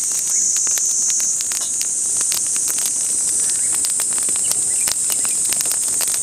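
Steady, high-pitched chorus of insects, with many small, sharp clicks and crackles scattered over it.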